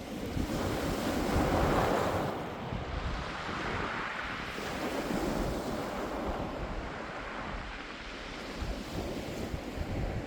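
Sea waves breaking on a pebble beach and washing over the stones, the surge swelling loudest about two seconds in and again around four to five seconds, with wind rumbling on the microphone.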